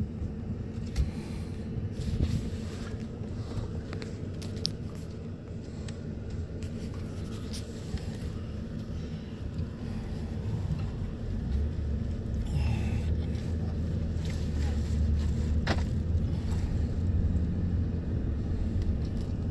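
Road and engine rumble heard inside a moving pickup truck's cabin, growing louder about halfway through, with a few sharp clicks.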